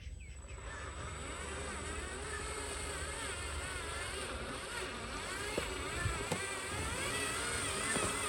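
Small electric motors of radio-controlled construction machine models whining steadily, their pitch wavering up and down, with a few light clicks.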